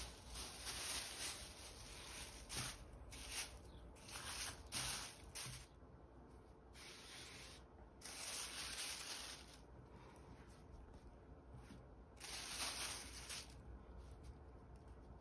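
Faint rustling of a thin plastic sheet being spread over and tucked around dough balls, with hands brushing on a floured worktop. It comes in about six short bursts with quiet gaps between them.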